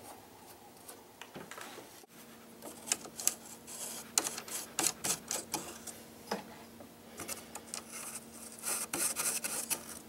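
Irregular small metallic clicks and scrapes of fingers threading hex nuts onto the threaded studs of a pinball back box's wooden speaker panel, with a faint steady hum behind.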